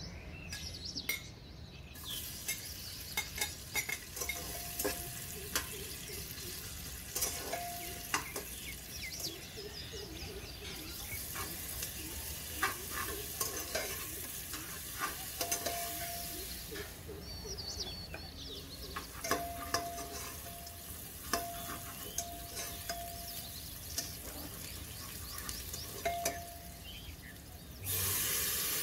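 Sliced onions sizzling in hot oil in an aluminium pressure cooker, with many sharp clicks and scrapes of a spoon against the pot as they are stirred. Near the end water is poured in and the sizzle jumps to a louder hiss.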